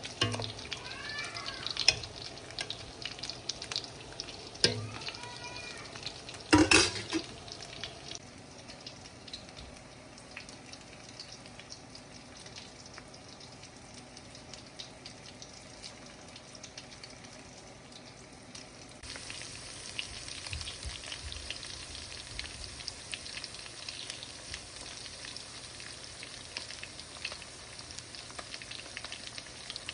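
Food frying in hot oil in a pan, a steady dense crackle and sizzle, with a sharp knock about seven seconds in. The frying gets louder and brighter about two-thirds of the way through.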